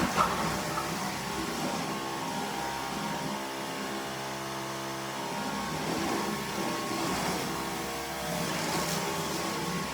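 Strong gusty wind rushing steadily and swelling now and then, with a brief sharp knock right at the start.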